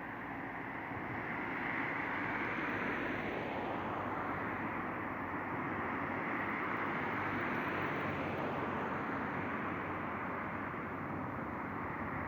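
Jet engines of a Ryanair Boeing 737-800 (CFM56-7B turbofans) running, heard as a steady rushing noise that grows louder about a second or two in and then holds.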